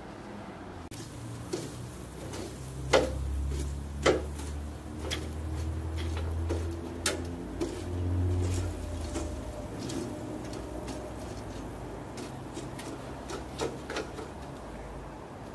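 Metal clinks and knocks from a hinged wire grill basket of kebabs being handled over a steel charcoal mangal: scattered sharp strikes, the loudest two about three and four seconds in. A low rumble underlies the first half.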